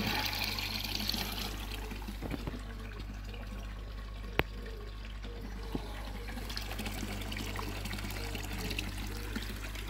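Koi pond water trickling and splashing steadily, over a constant low hum. A single sharp click about four and a half seconds in, and a fainter one a little over a second later.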